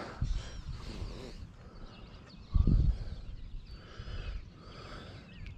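Wind rumbling on the microphone at a lakeshore, with one louder thump about two and a half seconds in and faint bird chirps.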